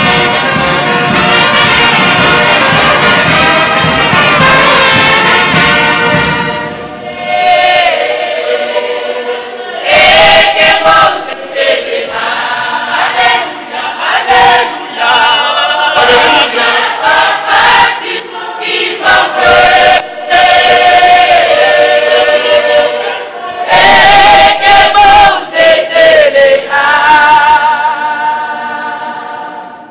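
Brass band with sousaphones, trumpets and trombones playing a hymn. About seven seconds in, voices singing the melody come to the front over the band, and the music fades near the end.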